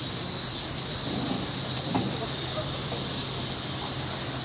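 Steady high-pitched hiss of an insect chorus, most likely summer cicadas, with faint low murmurs beneath it.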